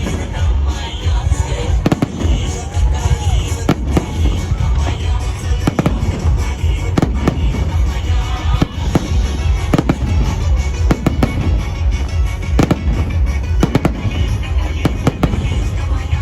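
Fireworks salute: aerial shells bursting one after another, with sharp bangs about once a second or more over a continuous low rumble.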